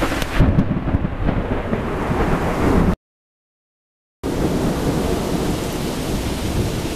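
Heavy wind-driven rain in a storm, with gusts buffeting the microphone into a low rumble. The sound cuts out completely for about a second near the middle, then the storm noise carries on.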